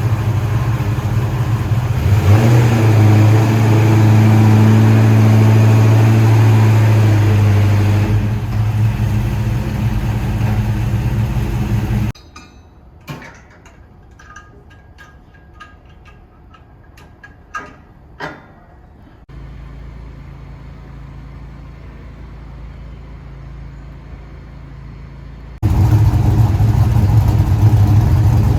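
LS1 V8 engine of a VN Commodore running, holding a steady strong note for several seconds. The sound then cuts off abruptly to a quiet stretch with a few sharp clicks and a low hum, and the engine is heard running again near the end.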